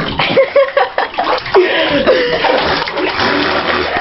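Water splashing and sloshing in a bathtub as a person moves about in it, over a steady rush of water. Short bits of a voice come through on top.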